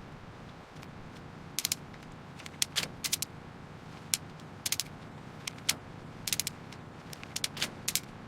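Irregular sharp metallic clicks and clinks, many in quick pairs and small clusters, over a faint steady low hum.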